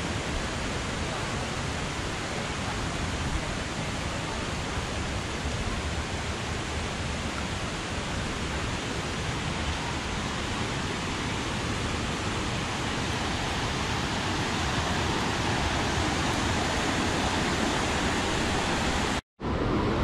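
Steady rushing roar of a waterfall stream running high with rainy-season water, growing a little louder near the end. It cuts out briefly just before the end.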